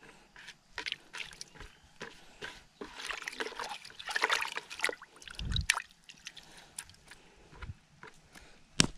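Water sloshing and splashing in a bucket as a hand stirs red ants and leaves about in it, in irregular small splashes that are busiest around the middle.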